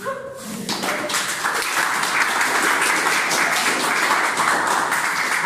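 Crowd applauding, starting about a second in and holding steady.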